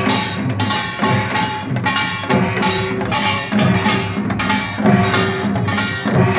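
Korean pungmul percussion band playing a fast, dense rhythm: sharp small-gong strikes and drum beats over ringing gong tones.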